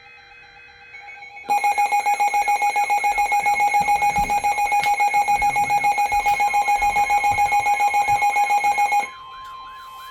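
Emergency-alert radio tones: a loud alarm beeping rapidly, about six times a second, over a fast repeating warble. It cuts off about nine seconds in, leaving the steady NOAA Weather Radio 1050 Hz alert tone that comes before a warning message.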